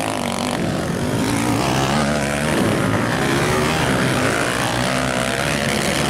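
Dirt bikes racing round a motocross track, their engines running hard with the pitch rising and falling as the riders rev and ease off.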